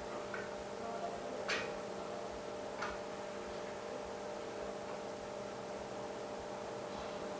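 Steady electrical hum from workshop equipment, with three light clicks in the first three seconds, the sharpest about a second and a half in.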